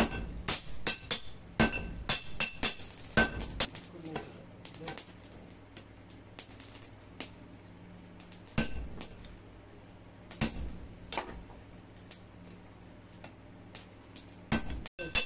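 Hand hammer striking red-hot leaf-spring steel on an anvil, ringing metallic blows. There is a quick run of blows for about three and a half seconds, then a few scattered strikes, and another run near the end.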